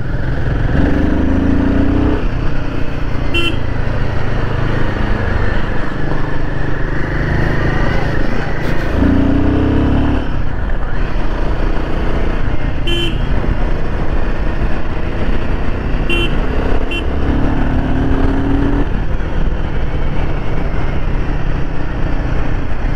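Royal Enfield Himalayan 450's single-cylinder engine running under way in traffic, rising in pitch three times as it accelerates. Short vehicle-horn beeps sound a few times.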